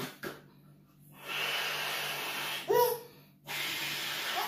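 A balloon being blown up by mouth: two long, breathy blows, the first about a second in and the second starting just over halfway through, with a brief voiced sound between them.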